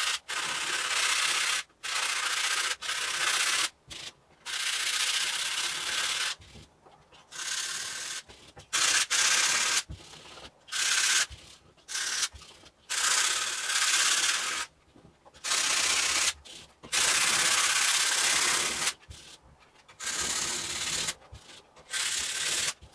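220-grit sandpaper rubbing over a dried fiberglass Bondo filler patch on a painted wall, in repeated bouts of sanding strokes, each a second or two long, with short pauses between.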